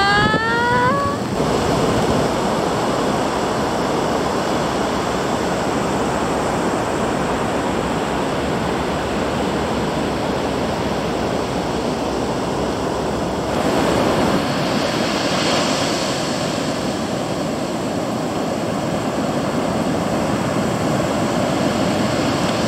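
Ocean surf breaking and washing up the beach: a continuous rushing of water that swells a little past the middle.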